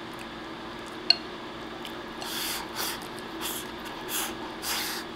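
Chopsticks click once against a ceramic bowl, then a run of about five short, wet slurps as soft egg and rice are shovelled into the mouth from the bowl's rim.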